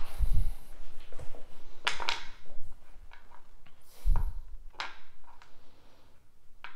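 A few scattered knocks and light clicks, with two dull thumps, one near the start and one about four seconds in.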